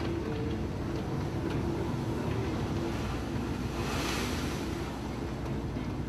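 A ship under way: a steady low engine drone under the rush of water, with wind buffeting the microphone. About four seconds in the rush of water briefly swells louder, like a wave breaking.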